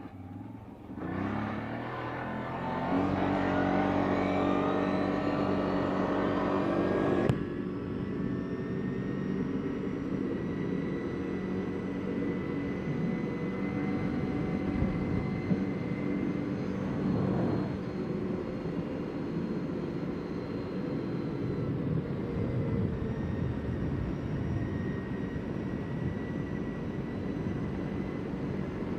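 CFMoto CForce 800 ATV's V-twin engine accelerating, its pitch climbing over the first few seconds. The throttle comes off sharply about seven seconds in, and the engine then runs steadily at a cruising pace.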